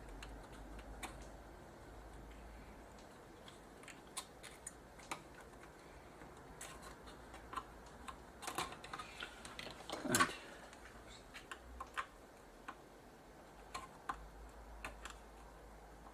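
Scattered light clicks and taps of a soldering iron and desoldering braid working the capacitor joints on a circuit board, with a louder knock about ten seconds in.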